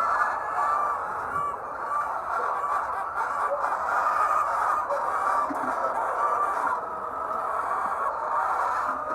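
A large flock of laying hens clucking together, a dense steady chorus of many short overlapping calls.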